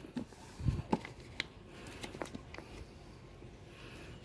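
Faint handling sounds from hands working on a wooden stingless-bee hive box while its lid is taped shut: a soft thud under a second in, then a few light clicks and taps over the next two seconds.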